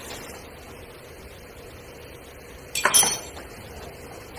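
Damaged sheet-metal front fender of a Toyota Hilux clanking once, briefly, as it is worked loose from the truck, a little under three seconds in, over a low steady hum.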